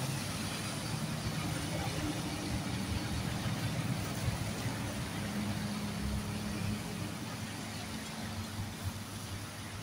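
Road traffic on wet pavement: a semi-trailer truck's engine running as it passes close and pulls away, over a steady hiss of tyres on the rain-soaked road.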